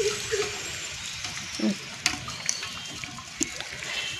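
Metal ladle scraping through rice and knocking against the side of a large aluminium pot of dum-cooked chicken biryani as it is turned over, with a few sharp clicks over a steady hiss.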